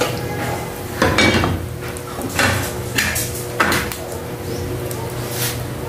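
A metal frying pan and wooden spatula knocking and scraping as scrambled eggs are scraped out of the pan onto a plate, then the pan set back on the gas stove grate. There are a handful of separate knocks and scrapes over the first four seconds.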